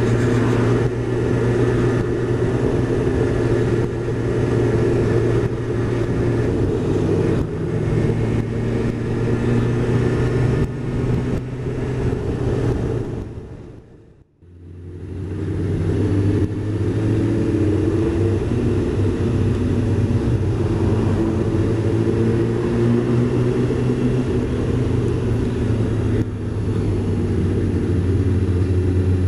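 Honda CBR600F's inline-four engine and wind noise while riding, the engine pitch rising and falling through the gears. The sound fades briefly to near silence about halfway through, then comes back up.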